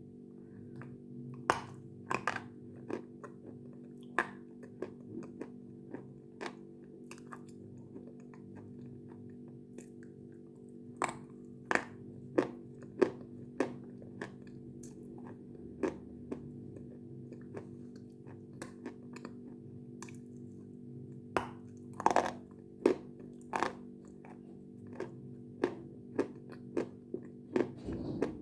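Close-up biting and chewing of a hard, crunchy food: irregular sharp crunches and crackles, a few much louder bites about two-thirds of the way through, over a steady low hum.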